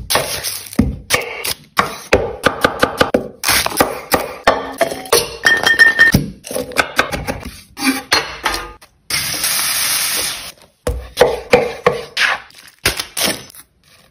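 Kitchen knife cutting through onion and knocking on a wooden cutting board, in quick runs of crisp cuts. About nine seconds in, a steady hiss lasts for about two seconds.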